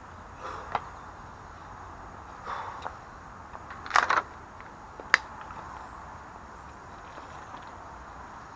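A few sharp clicks and knocks from a road cyclist in cleated shoes moving about beside the bike. The loudest are a pair about four seconds in and a single sharp click a second later, over a steady outdoor hiss.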